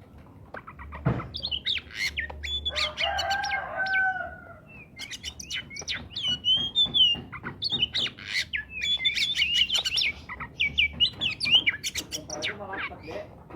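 Oriental magpie-robin singing in full voice: a rapid, varied run of sharp chirps and clear whistles, pausing briefly near the middle.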